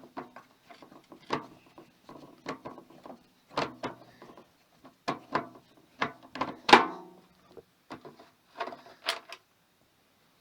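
Irregular knocks and clatter of metal parts being handled as a microwave oven is taken apart. One louder clang about seven seconds in rings briefly.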